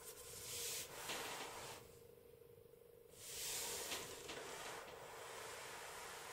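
Soft rubbing as a hand strokes a cat's fur: two swishes of about a second and a half each, a couple of seconds apart, then a fainter steady hiss.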